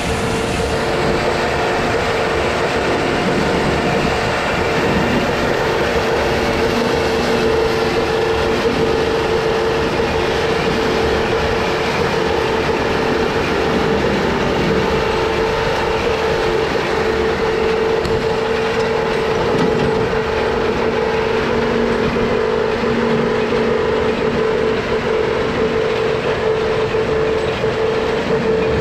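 Elibol square baler running while it baling wheat straw behind the tractor: a steady mechanical clatter from the pickup and plunger, with a constant whine over it.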